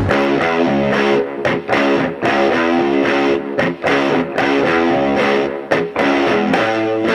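Background rock music led by electric guitar, playing a steady rhythm of changing notes.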